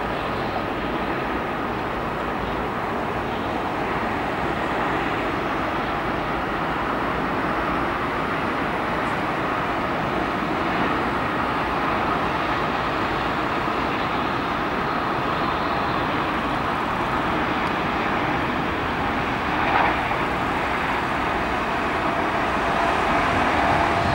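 The Dash 8-400's two turboprop engines and six-bladed propellers give a steady drone with a faint steady whine running through it through the landing and rollout. There is one brief louder swell about twenty seconds in.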